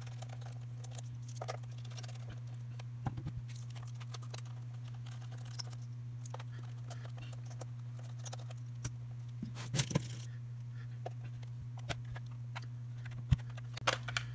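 Scattered small clicks and taps as a precision screwdriver backs out the screws of a handheld tester's plastic case and the case is handled, with a few louder clatters around the middle and near the end. A steady low hum runs underneath.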